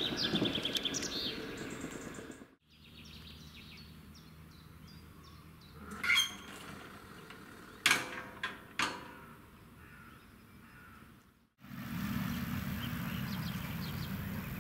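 A passing train's rumble fades out, then birds chirp over a quiet background, broken by three sharp mechanical clunks about six, eight and nine seconds in as a semaphore distant signal's disc swings back after the train. Near the end a steady low rush with faint chirps takes over.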